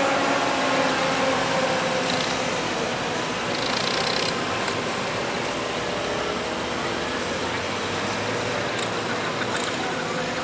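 Vintage pulling tractor's engine idling steadily, the tractor stopped at the end of its pull.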